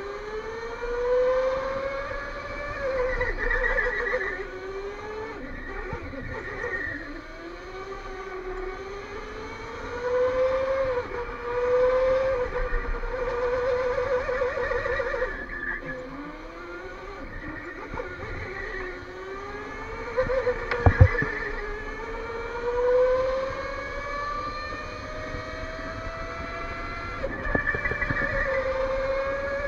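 Electric go-kart motor whining, its pitch climbing as the kart accelerates and sliding back down into each corner, over and over. One sharp loud knock about two-thirds of the way through.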